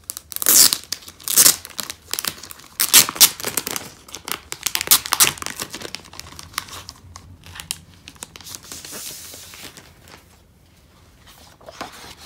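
A clear plastic sleeve crinkling loudly in sharp crackles as it is torn open to get the print inside out. The crackling settles into softer rustling about halfway through and dies away near the end.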